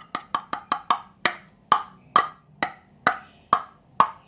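A run of sharp, hollow taps on a hard object, about a dozen, quick at first and then slowing to about two a second.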